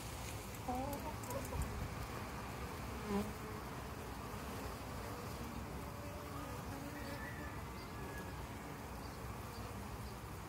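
Honey bees buzzing steadily as they fly in and out of the entrance hole of a hollow-log hive.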